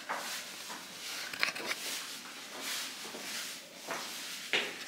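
Faint clicks, knocks and rustles from a handheld camera being moved and handled, heard against quiet room tone in a small, hard-walled bathroom.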